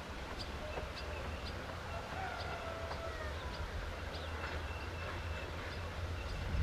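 EffiShunter 1600 diesel shunting locomotive running at low revs as it creeps forward, a steady low rumble. Small birds chirp over it.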